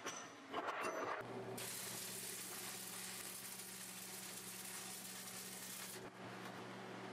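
Electric arc welding steel, a steady sizzling hiss lasting about four seconds and stopping abruptly about six seconds in, with a low steady hum under it. Just before the arc strikes there is a brief clatter of steel plates being handled.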